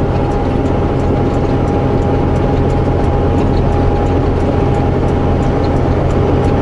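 Semi truck's diesel engine running steadily under load, a low drone with a steady whine above it, heard from inside the cab. Faint rapid ticking sounds over it.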